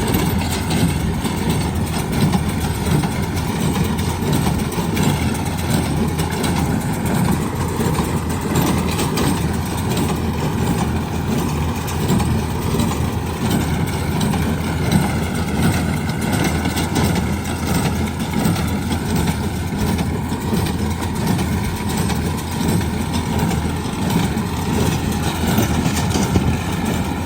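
Tractor engine running steadily while powering a square straw baler, a dense, even machine noise with no pauses.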